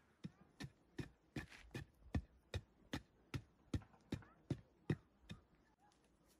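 Digging a hole by hand: a flat stone chopping into dry, packed earth in a steady rhythm of about two and a half strokes a second, fourteen strokes in all, stopping near the end.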